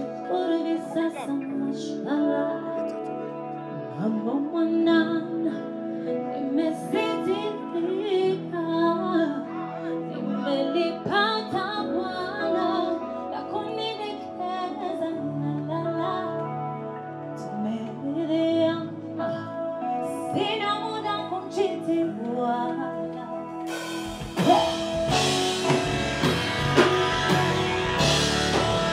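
Live music from a stage sound check: sustained keyboard-like chords under a bending, sung melody, then about 24 seconds in the full band comes in suddenly and louder, with guitar.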